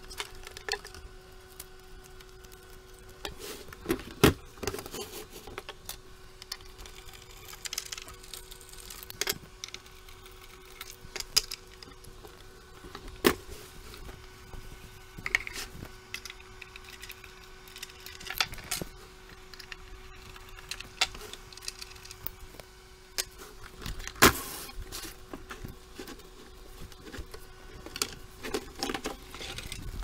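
Scattered metallic clicks, clinks and knocks from unscrewing and handling a Yamaha CR-1020 stereo receiver and sliding its chassis out of the wooden cabinet, sped up, with a few sharper knocks standing out over a faint steady tone.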